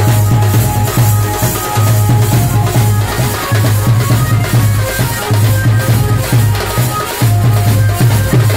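Loud drum-led dance music with a large bass drum: a deep bass note repeating about every second and a half, drum strikes beating a steady rhythm, and a melody of short high notes on top.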